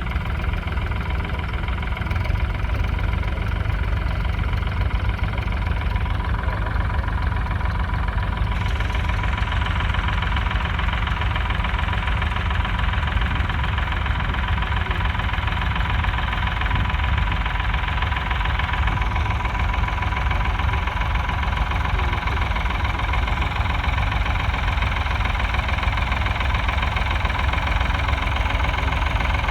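1968 Ford 4000's 3.3-litre three-cylinder diesel engine running steadily with a low knocking rumble, its sound turning brighter about eight seconds in.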